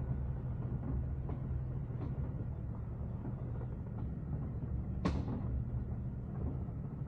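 A Jeep Cherokee XJ's engine running steadily, with a single sharp click about five seconds in.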